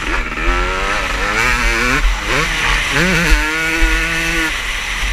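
Motocross bikes racing, their engines revving up through the gears in repeated rising sweeps. One engine holds a steady pitch for about a second past the middle.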